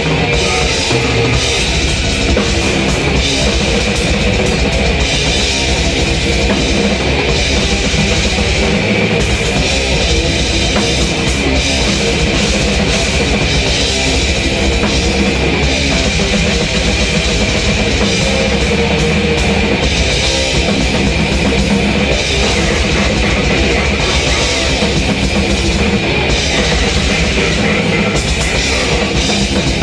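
Drum kit played at a fast extreme-metal tempo, with rapid, unbroken bass-drum strokes under crashing cymbals, over heavy metal music with distorted guitars.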